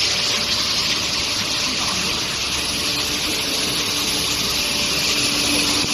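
Steady rushing water noise with a faint high, steady whine: the quench water spray and running machinery of a steel bar induction quenching and tempering line.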